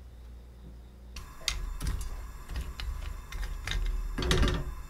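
A lacquered wooden spatula stirring chopped nuts in a stainless steel frying pan, starting about a second in: scraping with many scattered clicks and rattles of the pieces, busiest near the end.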